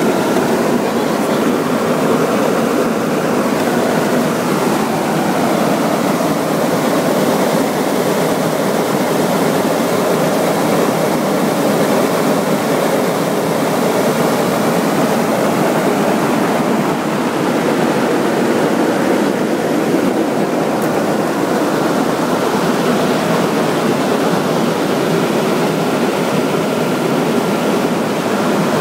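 Steady, loud drone of running machinery: a rushing noise with a faint hum that does not change.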